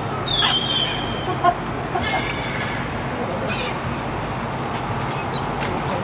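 Seagulls calling, a few short, high squawks, one near the start sliding slightly downward, over a steady background hiss.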